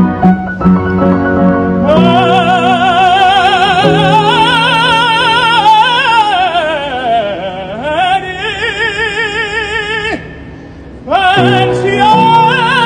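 A man singing opera with strong vibrato over piano accompaniment. Piano alone for about two seconds, then the voice comes in on a long held note, slides down and back up in the middle, breaks off about ten seconds in, and returns a second later.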